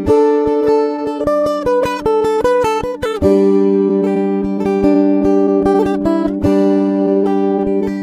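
Background music: plucked acoustic guitar over a steady beat.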